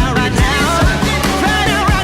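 Rock song with a sung melody over a steady kick-drum beat.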